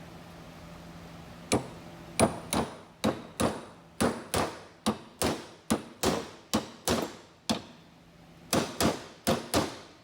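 Hammer blows in woodworking: about eighteen sharp strikes at two to three a second, beginning about a second and a half in, with a pause of about a second near the end.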